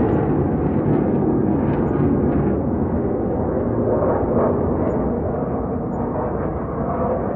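Military aircraft flying overhead: a loud, deep, steady rumble that eases off slowly.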